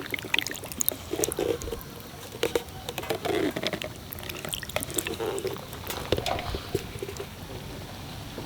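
Cooking sounds at a sukiyaki pan: irregular light clicks and taps of utensils, with soft liquid sounds.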